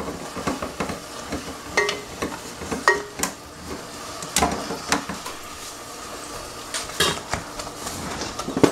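Handheld can opener cranking around the lid of a steel food can, with irregular sharp metallic clicks and knocks, over the steady sizzle of ground beef frying in a pot.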